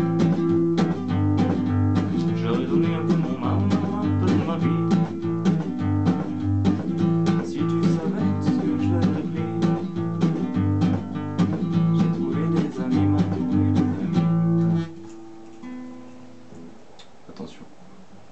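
Classical nylon-string guitar played in full strummed chords, stopping abruptly about fifteen seconds in; after that only faint stray notes and handling clicks from the strings and neck.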